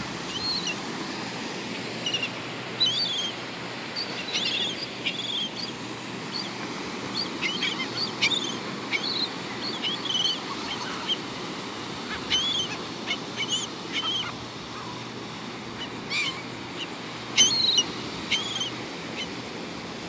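A flock of gulls calling with many short, sharp squawks scattered throughout, a louder burst of calls about three-quarters of the way through, over a steady rush of surf.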